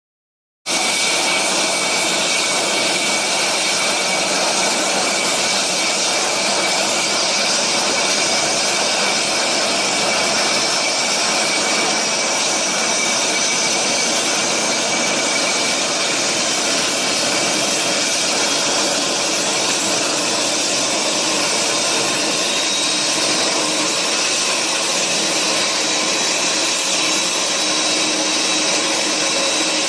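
Boeing 747 jet engine running on the ground during its first run after an engine change: a steady, loud rush with a high whine that slowly rises in pitch.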